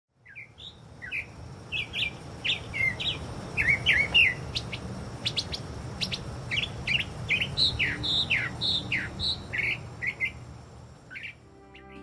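Northern mockingbird singing: a rapid run of short, varied chirps and whistled slurs, some notes repeated several times in a row, over a low steady background rumble. Soft music comes in near the end.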